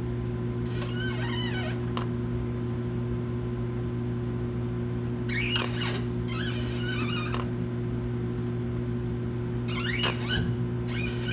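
Jaguar E-Type's clutch pedal and hydraulic clutch linkage squeaking as the clutch is pressed and released, about five short high squeaks, mostly in pairs a few seconds apart, over a steady low hum.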